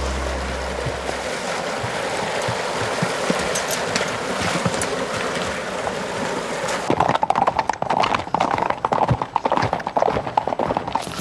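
Horses' hooves clip-clopping on a trail, with a steady hiss behind them. About seven seconds in, the hoofbeats turn louder and sharper.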